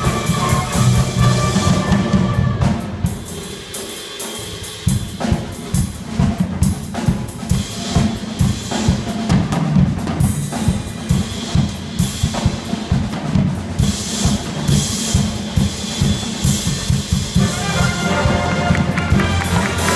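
Jazz band with a drum kit solo: after the horns drop out a few seconds in, rapid snare and bass drum strokes carry alone, and the band's sustained notes come back in near the end.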